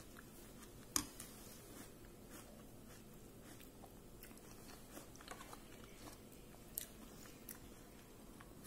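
A person quietly chewing a mouthful of oatmeal with nuts, with soft mouth clicks and two sharper clicks, one about a second in and one near the end.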